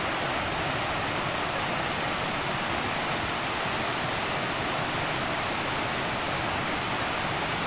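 Spring-fed mountain stream rushing over rocks: a steady, even wash of water with no breaks.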